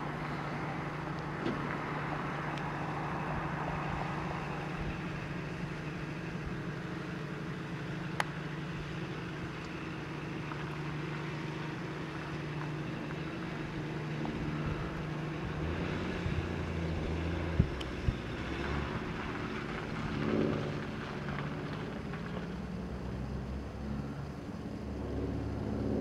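A steady engine hum, its pitch shifting lower about two-thirds of the way through, with a few sharp clicks.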